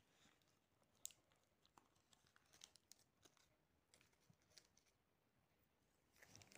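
Near silence, with faint, scattered crinkles and clicks, the clearest about a second in.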